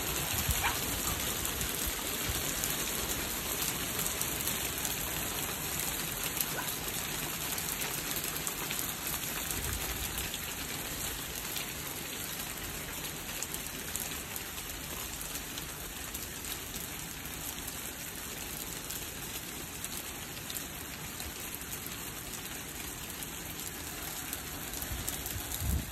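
A heavy shower of small snow pellets falling on a deck, fence and yard: a steady dense hiss of countless tiny impacts that eases slightly over time. A soft thump near the end.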